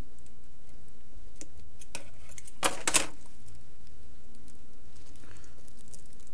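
Scissors and fingers working at the plastic wrapping on a card deck box: a few faint clicks, then two louder sharp snips close together about three seconds in.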